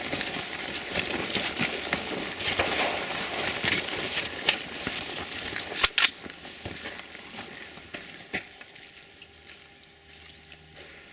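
Footsteps and rattling gear as a shooter runs and takes up an AR-15 rifle, with many small clicks and a few sharp knocks, the loudest a close pair about six seconds in. The sounds die down in the last few seconds.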